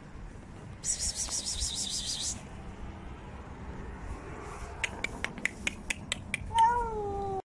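Dry cat food rattled in its bag for about a second and a half, then a quick run of sharp clicks, then a cat's meow, falling slightly in pitch near the end and the loudest sound here.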